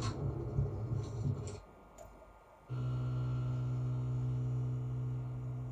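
Steady low hum with a ladder of overtones, starting about three seconds in after a brief noisy stretch that cuts off about one and a half seconds in.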